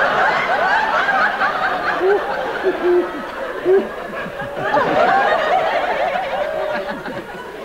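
Theatre audience laughing, many voices at once, easing off in the middle and swelling again about five seconds in.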